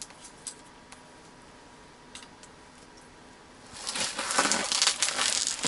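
A few faint clicks of fishing tackle being handled, then, about two-thirds in, a loud crinkling rustle as the angler moves and handles his gear.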